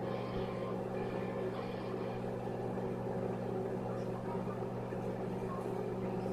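Microwave oven running with a steady, unchanging hum.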